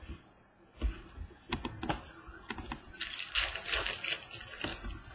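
Baseball trading cards being handled and flipped through: a few light clicks of card stock, then a sliding, rasping shuffle of cards for a second or two.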